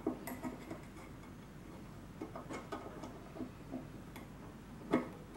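Light, irregular metallic clicks and taps as a steel spoke is fitted loosely to a model traction engine's wheel rim with small bolts, with one sharper knock about five seconds in.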